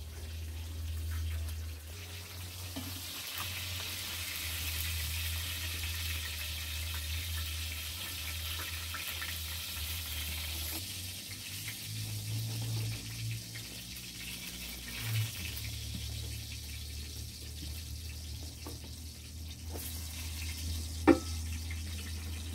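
Food frying in oil in a wide pan over a wood fire, a steady sizzling hiss. A single sharp knock near the end.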